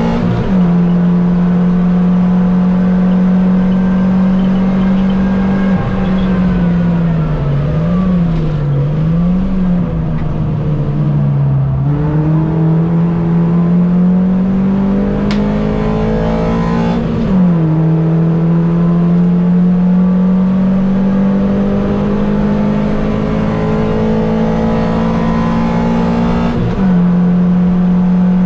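Mini Cup race car engine running hard in a race. Its note holds steady, dips and wavers about a third of the way in, then climbs. It changes pitch in sudden steps several times, and fainter engine notes from other cars rise and fall underneath.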